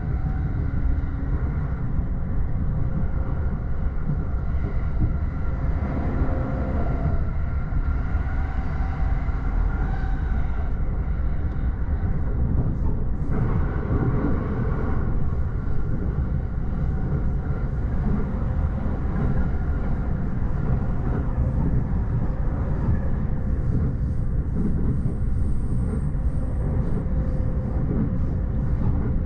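E231-series electric commuter train running at speed, heard inside the upper deck of its bilevel Green car: a steady rumble of wheels on rail, with faint humming tones that shift in pitch a few times.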